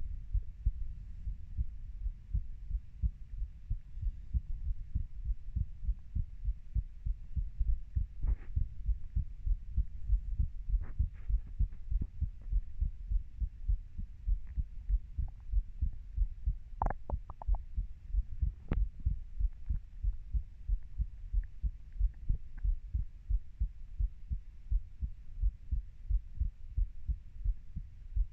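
A person's heartbeat, recorded close up: an even, steady rhythm of low thuds. A few faint clicks come through near the middle.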